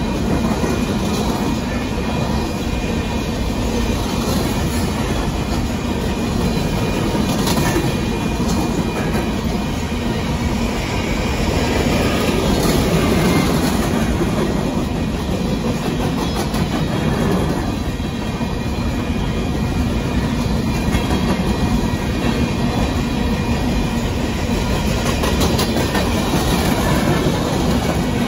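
Coal train's freight cars rolling past over a grade crossing: a steady rumble of steel wheels on rail, with the clickety-clack of wheels over rail joints.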